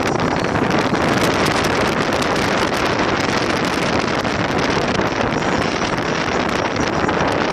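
Steady rush of wind buffeting the microphone, mixed with the road noise of a moving car.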